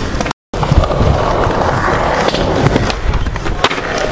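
Skateboard wheels rolling on concrete with a steady rumble, broken by several sharp clacks of the board, the loudest just under a second in.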